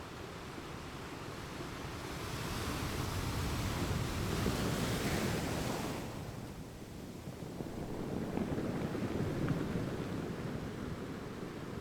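Ocean waves on a shore: a wave surges in about two seconds in, builds to a hiss and falls away abruptly about six seconds in, then a second, softer surge follows.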